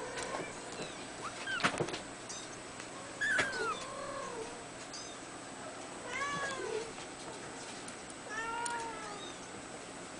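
Two-week-old Abyssinian kitten mewing: about four short, high calls that rise and fall in pitch, a couple of seconds apart, with a few sharp clicks in the first two seconds.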